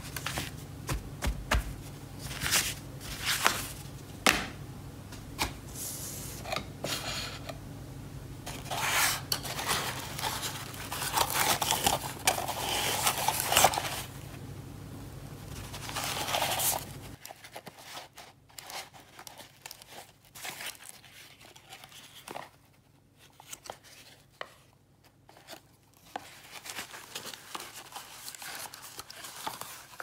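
Cardboard packaging handled and slid apart by gloved hands, with irregular rustling, scraping and crinkling of the wrapping: a boxed computer mouse being unpacked. The handling is dense in the first half and sparser after about halfway, where a low background hum also stops.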